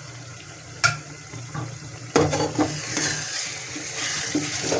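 A utensil knocks once against the pot, then about two seconds in the korma masala starts sizzling loudly in hot oil as it is stirred, a steady frying hiss with spoon scrapes against the pot.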